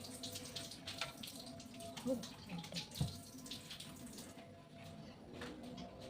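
Water running and splashing in a sink, with scattered light clinks and two louder knocks about two and three seconds in.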